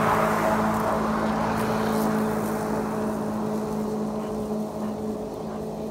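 Greenworks 60V battery self-propelled lawn mower with an X-blade running as it cuts grass: a steady electric hum with a whirring rush. It is loudest as it passes close, then fades as it moves away.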